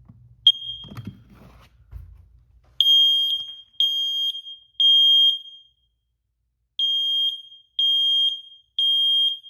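First Alert smoke detector sounding on its test button: a short chirp, then two rounds of three loud, high-pitched beeps about one a second with a pause between rounds. This is the temporal-three alarm pattern, and it shows the alarm works.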